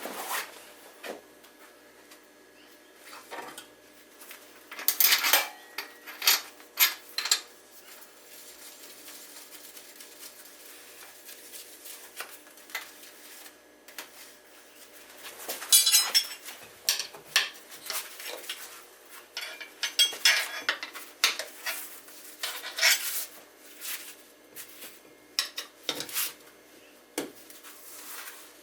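Metal hand tools and bike parts clinking and clattering in irregular bursts during work on a dirt bike's wheel for a tire change, over a faint steady hum.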